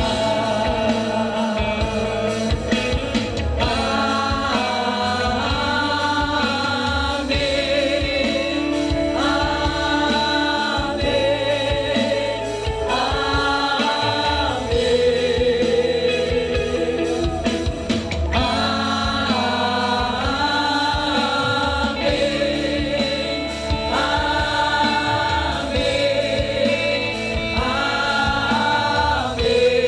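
Church worship team singing a slow gospel worship song together, with voices holding long notes that step from pitch to pitch over the accompaniment.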